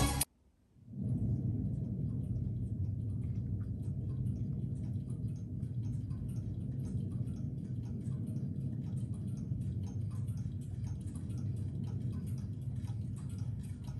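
Music cuts off abruptly, and after a brief gap a new track opens with many clocks ticking over a steady low hum, played back through Polk R200 speakers.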